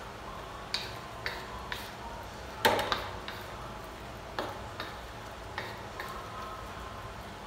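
A wooden spatula knocking and scraping against a stainless steel wok while stir-frying chicken and bell pepper: irregular clacks, one louder knock a little under three seconds in.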